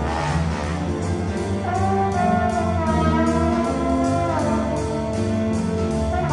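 Jazz big band playing: a saxophone and brass section over piano, electric guitar and drum kit, with a cymbal keeping steady time. A prominent horn line holds and bends through the middle of the passage.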